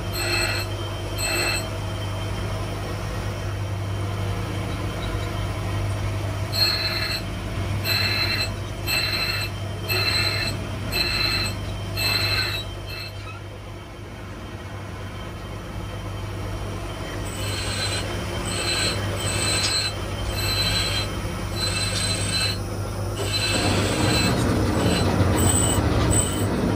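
Bench grinder motor humming steadily while a small steel part is pressed against the grinding wheel in short strokes, giving a high squealing screech about once a second. The grinding stops for a few seconds about halfway through while the motor keeps running, then starts again.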